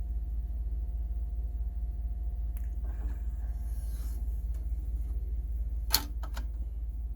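Linn Ikemi CD player clicking during its post-repair test: one sharp click about six seconds in, then two lighter clicks, over a steady low hum and a faint steady tone.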